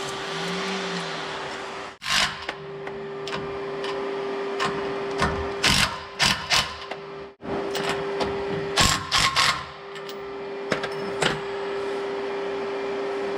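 Hand tools clicking and clinking on metal as the sway bar's mounting bolts are tightened, in short clusters of sharp clicks, over a steady hum.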